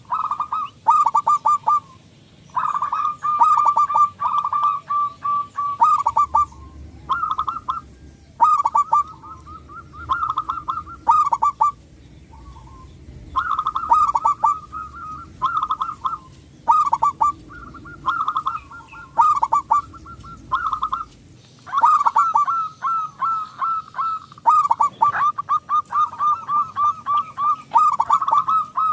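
Male zebra dove (perkutut) cooing over and over, each phrase a run of quick rolling notes, with short gaps between phrases.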